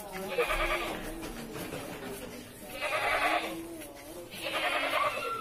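Goats bleating, three quavering calls each under a second long, over people's voices.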